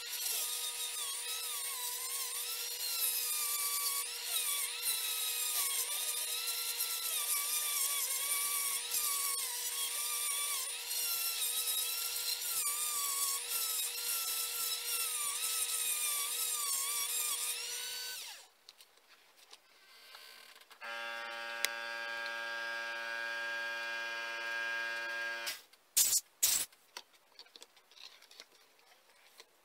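Handheld rotary tool grinding out the intake port of an aluminium motorcycle cylinder head, its high whine wavering in pitch as the bit loads and unloads. It stops about two-thirds of the way in. A steady hum follows for a few seconds, then a couple of sharp knocks as the head is handled near the end.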